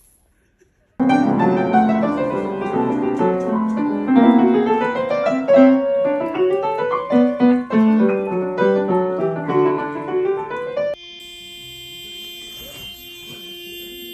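Piano music with quick, busy notes that starts about a second in and breaks off suddenly near the end, followed by quieter steady held tones.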